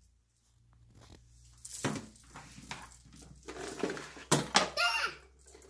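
Plastic packaging and a gift bag crinkling and rustling in short, irregular bursts as a small child rummages through them and pulls items out. A few brief child's vocal sounds mix in near the middle.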